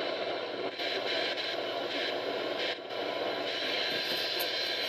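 Radio static and hiss from a noisy broadcast signal, steady throughout, with a low hum underneath.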